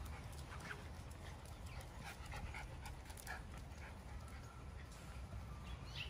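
Miniature Schnauzer puppies playing on paving: faint panting and scattered small clicks and scuffles, over a steady low rumble.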